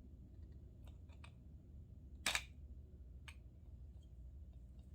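Metal doorknob parts clicking faintly as they are worked by hand, a few scattered clicks with one sharper click about two seconds in.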